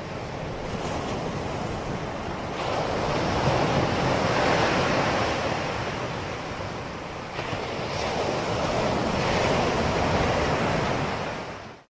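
Ocean surf washing up a beach: a steady rushing noise that swells and eases twice, then fades out near the end.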